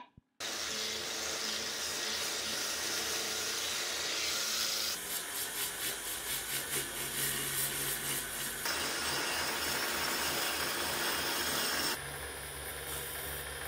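A machine starts about half a second in and spins a rust-pitted metal vacuum-cleaner part in its chuck while abrasive paper is pressed against it: a steady rubbing hiss over a pulsing motor hum, with even rhythmic strokes in the middle. The sound changes about twelve seconds in, when a thin metal tool is held against the turning part.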